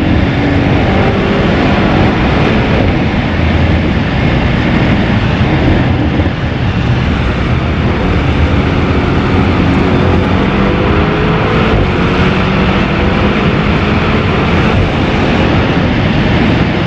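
Tuned Audi RS6 Performance's twin-turbo V8 with an Akrapovic exhaust, running at a steady pace under light load, heard as a loud, even drone of engine and road noise whose pitch shifts only slightly.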